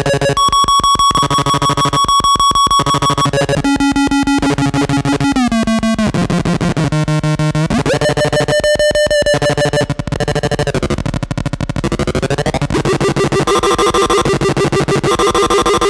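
Cadence four-oscillator drone synth playing a rapidly pulsing, buzzing drone as its knobs are turned by hand. The pitch slides down twice around five and six seconds in, jumps up near eight seconds, falls again around ten to eleven seconds, and the texture changes to a denser wobbling chord near thirteen seconds.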